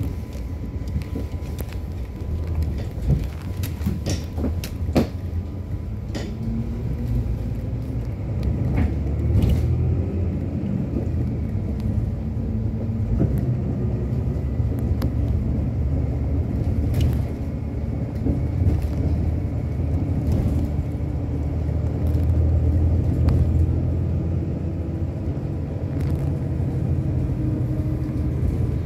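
Inside a moving bus: a steady low rumble of engine and road noise, the engine note drifting up and down as it drives, with a few sharp clicks or rattles scattered through.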